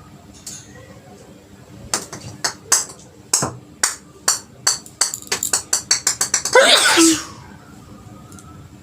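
A woman sneezing on purpose over and over: short, sharp sneezes coming faster and faster, about sixteen of them, then one longer, louder sneeze near the end.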